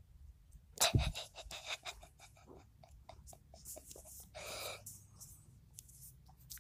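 Faint handling noise close to a phone's microphone: a thump about a second in, then a run of small clicks and taps, and a breath a little after halfway.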